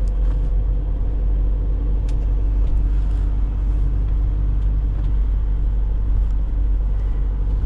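Van engine and road noise heard from inside the cab while driving: a steady low rumble with a faint engine hum over it.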